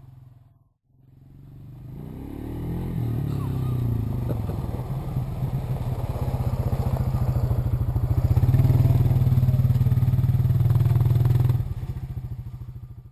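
Small off-road engine running and getting steadily louder, its pitch rising as it picks up revs, then holding a loud steady run before dropping off sharply near the end.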